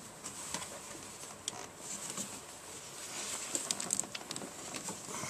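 Faint handling noise of hands fitting a greased nipple into a new plastic brake vacuum booster pipe in the engine bay: scattered light clicks, taps and scraping, coming thickest a little after halfway.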